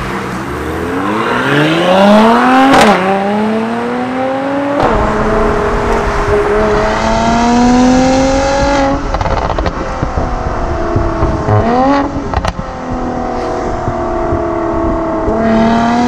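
Mercedes-AMG C43's twin-turbo V6 through a Supersprint sound pack exhaust, accelerating hard. The note climbs through the revs and drops at each upshift, four or five times, with a single sharp crack about twelve seconds in.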